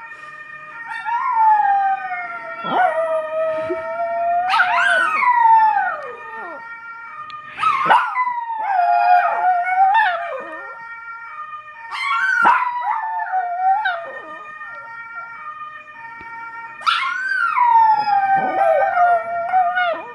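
Russian Toy terriers howling along to a fire siren: a string of long howls, each rising sharply and then sliding down in pitch, over the steady held tone of the siren.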